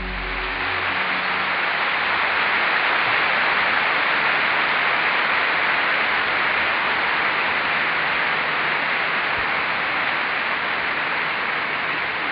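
Steady, loud hiss like static, with no rhythm or tones, that cuts off abruptly at the end.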